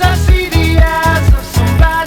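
Background music with a steady, upbeat beat.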